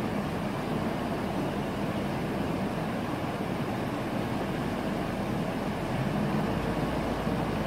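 Steady rush of a flooded, muddy river in spate.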